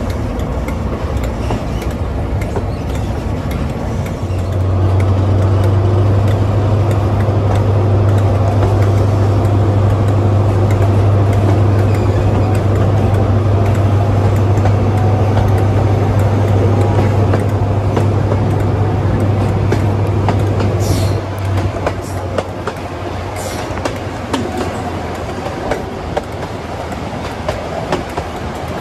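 Class 43 HST power car's diesel engine heard from just behind it on the moving train. About four seconds in its note rises to a loud steady drone under power, and about twenty-one seconds in it eases back. Wheels clatter over the rail joints throughout.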